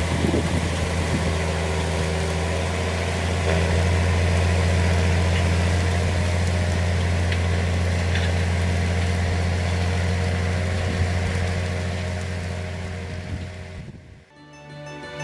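John Deere 6520 tractor's diesel engine running steadily under load while pulling a cultivator through stubble. It fades away near the end and music begins.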